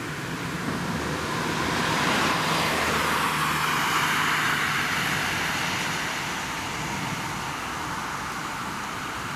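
A road vehicle passing on wet pavement: the hiss of tyres on the wet road swells for the first few seconds and then fades away, over a low steady hum.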